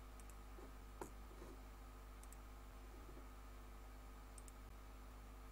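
Near silence: a steady faint room hum with a few soft computer mouse clicks, several of them in quick pairs, the clearest about a second in.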